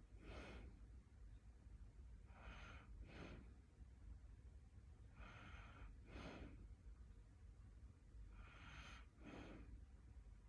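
Soft snoring in sleep: a breath about every three seconds, each a drawn-in, hissy breath followed at once by a shorter, lower out-breath. The owner wonders whether this snoring is a sign of sleep apnea.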